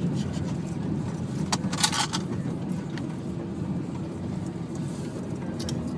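Car moving in city traffic: a steady low rumble of engines and tyres, with a short jingling clatter about two seconds in.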